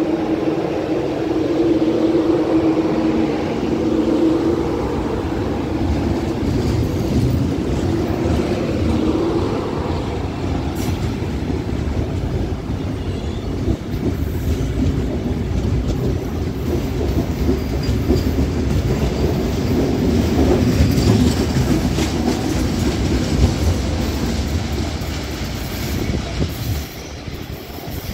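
CPTM 2100-series electric multiple unit pulling out and passing close by, a heavy steady rumble of wheels on rail with scattered knocks as the cars go past. A steady hum is heard in the first few seconds, and the sound falls away just before the end.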